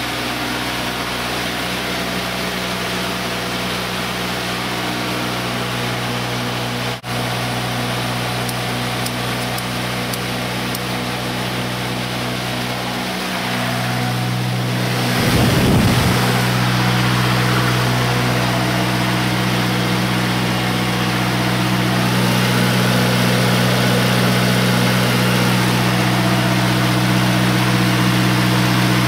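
Diesel engine of a 30 kW standby generator running steadily on its test run. About halfway through its pitch dips slightly and it gets a little louder, with a brief rush of noise just after.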